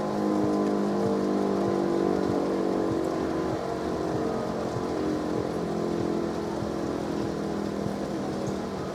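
Siemens E57 electric motor siren sounding a continuous steady tone, the all-clear (Entwarnung) signal of a test alarm. Its pitch holds level while the volume eases down slightly.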